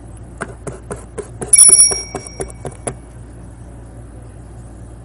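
A quick run of about a dozen light clicks, around four a second, with one loud ringing ding about a second and a half in that fades within half a second.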